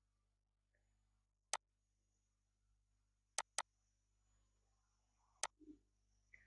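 Near silence broken by four sharp computer mouse clicks: one about a second and a half in, a quick double click near the middle, and one more near the end.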